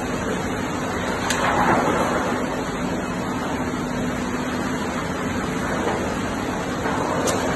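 Floodwater flowing across a factory floor, making a steady rushing noise, with a steady low hum underneath. The noise swells briefly about one and a half seconds in.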